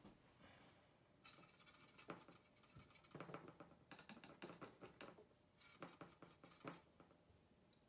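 Watercolour paintbrush scratching and scrubbing in quick strokes, in several short spells of faint, rapid clicking.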